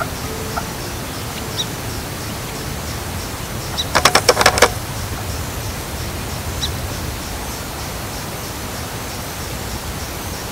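Steady rushing noise, with a few faint, short high chirps now and then. About four seconds in comes a quick run of about six sharp strokes.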